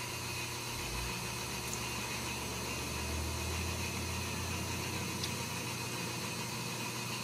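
Steady low hum with hiss, with a deeper rumble swelling from about one second in and fading after about five seconds.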